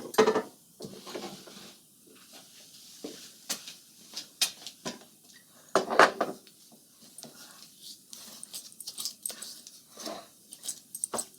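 Irregular metal clinks and knocks from a small lathe chuck being taken off and handled, then set up on a milling machine; no machine is running.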